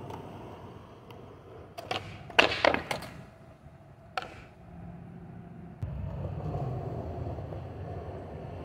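Skateboard on concrete: a cluster of sharp clacks of the deck and wheels slapping the ground two to three seconds in as the trick is missed, a single knock about four seconds in, then from about six seconds in a steady rumble of the wheels rolling across concrete.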